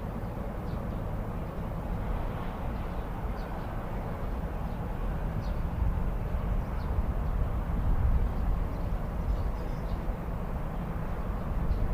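Urban street ambience heard through an apartment window: a steady rumble of distant traffic that swells a little partway through, with a few faint, short high-pitched sounds scattered over it.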